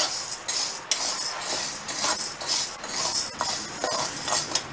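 Flat metal spatula stirring and scraping sago pearls as they are dry-roasted in a metal pan. The pearls rattle against the metal in repeated strokes, about two a second.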